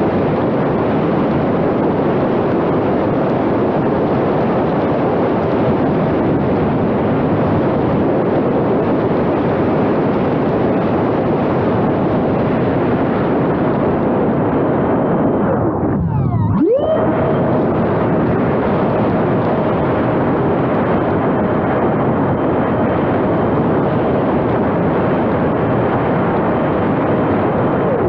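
Wind rushing loudly over the microphone of a camera mounted on a radio-controlled model airplane in flight, with the motor running underneath. About sixteen seconds in, the motor's sound drops away almost to nothing, then climbs quickly back up to a steady whine as the throttle is cut and reopened.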